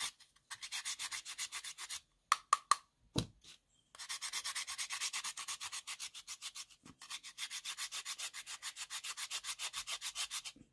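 Stick of chalk being grated on a small metal hand grater in quick, even rasping strokes, several a second. About two seconds in the grating stops for a couple of seconds, broken by a few sharp taps and a low knock, then resumes.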